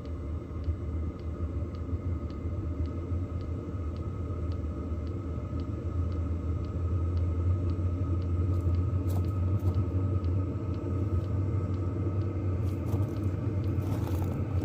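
An 8 kW diesel heater converted to burn used oil, running with a steady low rumble that grows louder about six seconds in. A faint regular tick repeats a little under twice a second, the kind a diesel heater's fuel dosing pump makes. The burner is running rough because the oil mixture is a tad too thick for it.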